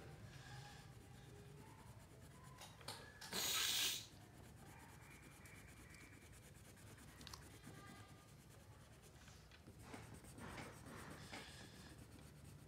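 Crayon scratching and rubbing on paper as green is shaded in with short strokes. A brief, louder rush of noise lasts under a second about three seconds in.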